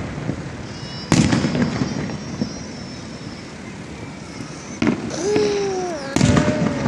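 Aerial fireworks going off: a sharp boom about a second in trailing into crackling and whistling, then two more booms near the end. A person's voice calls out in a long sliding tone between the last two bursts.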